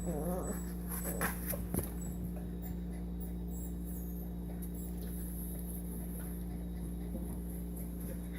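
Young puppy hiccuping: a few faint, short hics about a second and two seconds in, with a brief wavering whimper at the very start, over a steady low electrical hum.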